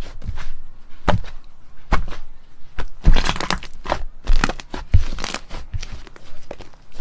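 Slime being squeezed and pressed by hand, giving irregular sharp crackling pops, thickest in the middle stretch.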